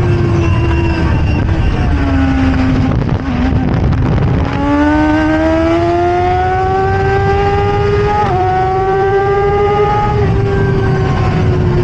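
Stohr WF1 sports racer's BMW engine at racing speed, heard from the cockpit. Its revs fall as the car brakes and shifts down through the gears over the first few seconds, then climb steadily under hard acceleration. There is a quick upshift about eight seconds in and another near ten seconds. Heavy wind rumble from the open cockpit runs underneath.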